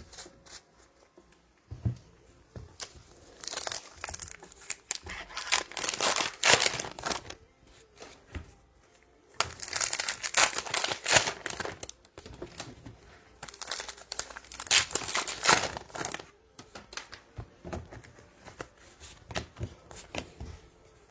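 Trading-card pack wrapper being torn open and crinkled in three long bursts, then lighter clicks and rustles of cards being handled.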